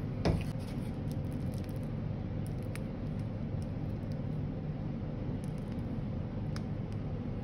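Steady low machine hum, with one short knock just after the start and a few faint clicks.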